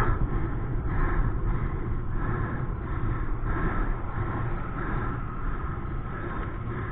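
Steady wind rush and rumble on the camera microphone, with tyre noise from a bicycle ridden fast on an asphalt road.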